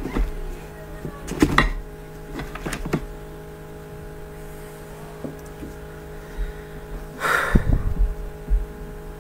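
Room sounds: scattered knocks and clatter over a steady hum, with one louder, brief rustling thump about seven seconds in.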